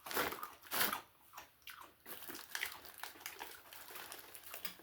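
A person chewing crunchy snack mix of corn sticks and peanuts close to the microphone: two louder crunches within the first second, then softer, irregular chewing crackles.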